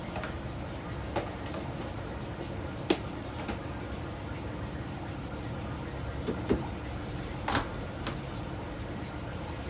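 Steady rumble of a commercial kitchen, with about half a dozen sharp knocks and clatters of pots and utensils, the loudest about three seconds in.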